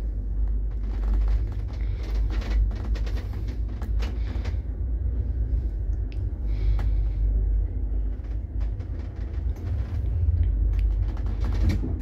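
Old 1969 passenger lift riding in its shaft: a steady low rumble with scattered clicks and knocks.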